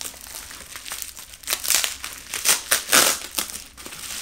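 Plastic wrapping crinkling in irregular bursts as it is pulled off a Christmas bauble by hand, loudest about three seconds in.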